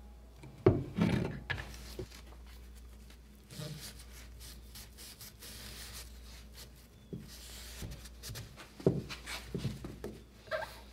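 Workshop handling of steel bar clamps on a glued-up oak drawer runner: sharp clunks and knocks as the clamps are set against the wood and bench, the loudest one near the start and more near the end, with a rag rubbing along the wood in between to wipe off glue squeeze-out.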